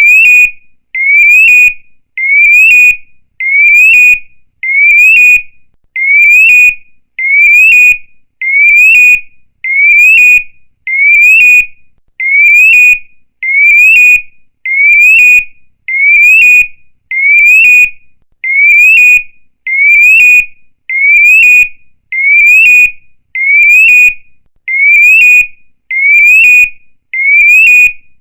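Electronic police siren sound effect: a high tone that sweeps quickly upward, holds for a moment and cuts off, repeated about once a second in a steady pulsing pattern.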